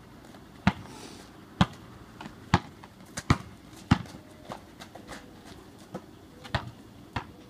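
Basketball being dribbled on an asphalt driveway: loud, sharp bounces about once a second for the first four seconds, then softer, more scattered bounces.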